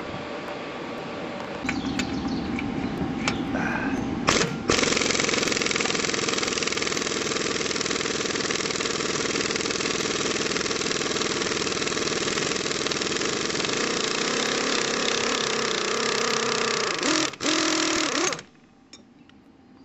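A power tool runs steadily for about fourteen seconds while a hub is being pulled off the transaxle's axle shaft. It is preceded by a lower hum from about two seconds in and stops abruptly near the end.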